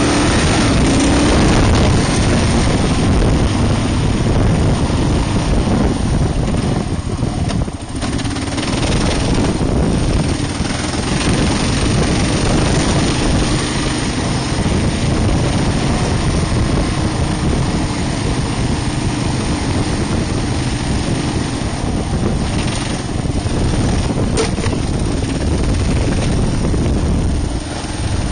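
Kawasaki KLR650 single-cylinder four-stroke engine running as the motorcycle is ridden, with brief dips in level about eight seconds in and again near the end.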